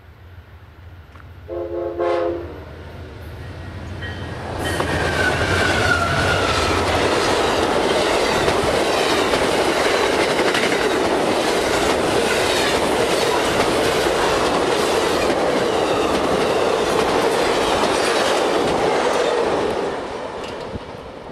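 Amtrak passenger train led by a diesel locomotive: the engine drones on approach, the locomotive's air horn gives one short blast about two seconds in, then the train passes close by at speed, a loud steady rush with rhythmic clickety-clack of wheels over the rail joints, dropping away near the end.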